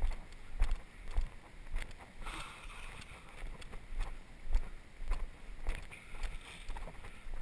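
Footsteps of a person walking on a dirt and leaf-litter forest trail, a steady walking pace of a dull thump with a light click about every half second or so.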